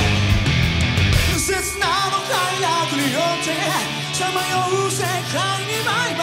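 Rock band playing live at full volume. About a second and a half in, the heavy bass and drums drop away, leaving a high melodic line of sliding, bending notes over a lighter backing.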